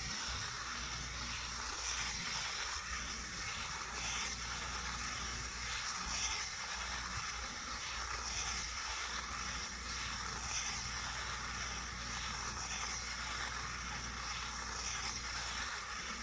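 Tractor engine running steadily as its trailed baler-wrapper works a haylage bale, wrapping it in plastic film: a constant low hum under a broad hiss.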